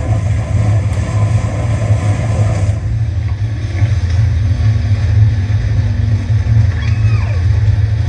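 Jet ski running at speed over the water: a steady low engine sound under a loud rush of wind and spray, which thins out about three seconds in.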